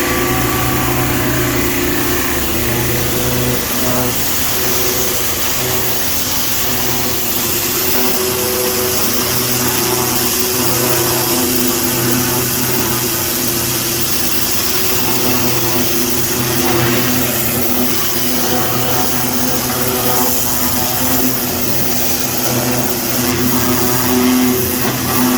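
Kärcher HD 10/25 Maxi high-pressure washer jet blasting hardened concrete off a concrete mixer truck. It makes a loud, steady hiss over a constant machine hum.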